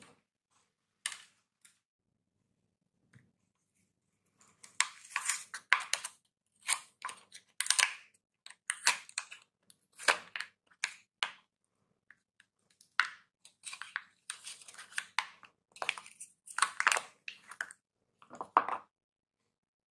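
A bar of Lux soap being unwrapped: its wrapper crinkles and tears in a run of short crackling rustles with brief pauses, starting about four seconds in.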